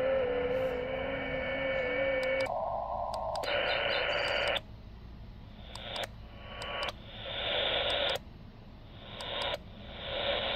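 Xiegu G90 HF transceiver's speaker hissing with band noise. For the first couple of seconds a steady wavering tone sits over it; then the static changes abruptly in level and pitch several times, with a click at each change, as the bands are stepped through.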